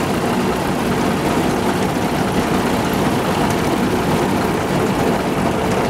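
A John Deere harvesting machine's engine running steadily at an even, loud drone.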